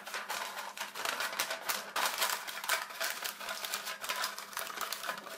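Sheet of paper being folded, creased and pressed into a metal tin to line it, crackling and rustling in quick irregular clicks.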